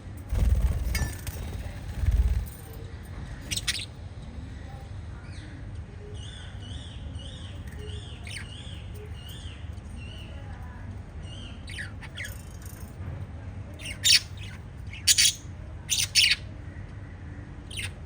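Small pet parrots chirping and squawking: a run of soft, quick, repeated chirps through the middle, then several loud, sharp squawks near the end. Low thumps in the first couple of seconds.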